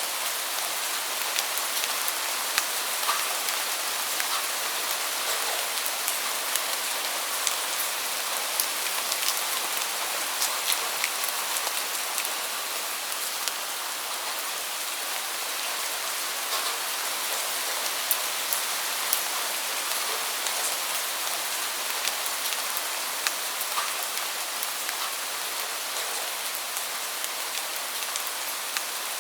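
Steady rain: an even, mostly high hiss with many scattered sharp ticks of individual drops striking a surface.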